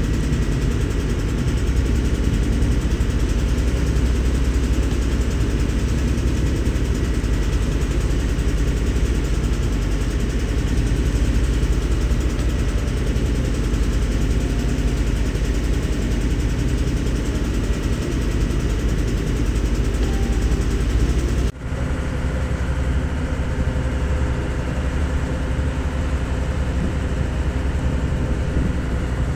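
Motor boat's engine running steadily under way, a constant low drone with a rush of noise above it. It breaks off for an instant about 21 seconds in, then carries on with less bass.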